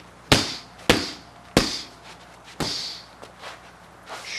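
Four sharp strikes in quick succession: a gloved jab, cross and hook smacking against held strike pads, then a leg kick landing, the last one a little longer.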